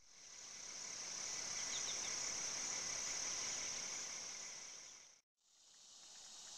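Steady, high-pitched chorus of insects droning outdoors. It fades out about five seconds in and fades back in after a short break.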